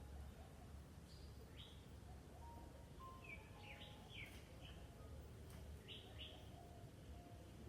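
Songbirds chirping faintly: a few short, quick falling chirps in small clusters, with a thinner whistled note or two between.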